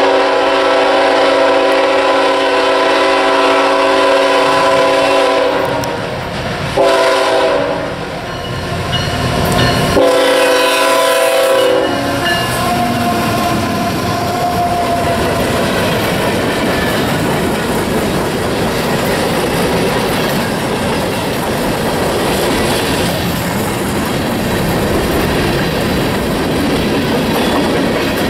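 CSX freight train's diesel locomotive horn sounds its multi-note chord three times as it nears a road crossing: a long blast, a short one about a second long, and a two-second blast. The train then rolls past with a steady rumble and the clickety-clack of covered hopper and tank car wheels over the rails.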